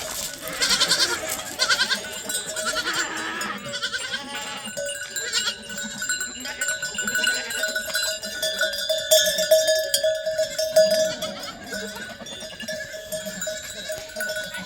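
Bells on a flock of livestock ringing steadily, with animals bleating in the first few seconds.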